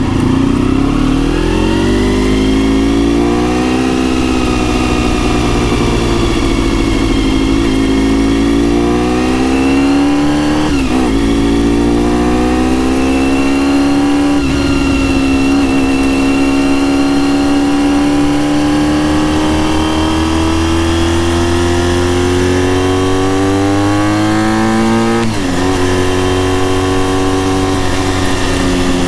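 Honda RVF400 NC35's V4 engine with gear-driven cams, breathing through a TSR slip-on silencer, pulling under load. Its pitch climbs steadily and is briefly broken by gear changes about 11, 14 and 25 seconds in, with a long slow rise in between. It is heard from a microphone inside the rear seat.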